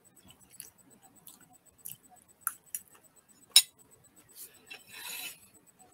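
Close mouth sounds of chewing sticky rice cake with peanuts: scattered wet smacks and clicks, the sharpest about three and a half seconds in, and a short hissing smack near the end.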